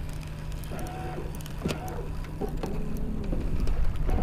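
Wind buffeting the microphone in a small fishing boat, a dense low rumble over a steady low hum. A few short, faint wavering tones come and go near the middle and again near the end.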